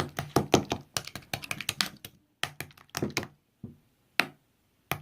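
Slime being squeezed and poked by hand, giving runs of sharp clicking pops several times a second, with two short pauses and a lone click near the end.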